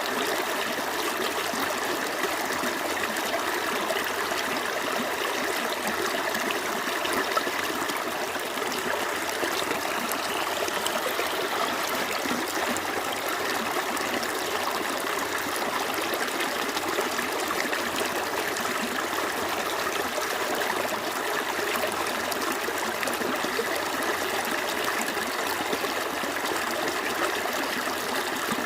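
A small stream of running water flowing and trickling steadily.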